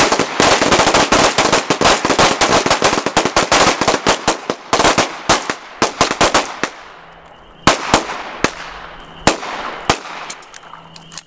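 Semi-automatic pistols firing from several shooters at once: a rapid, overlapping string of dozens of shots for the first six or so seconds, then scattered single shots and a quick short string near the end.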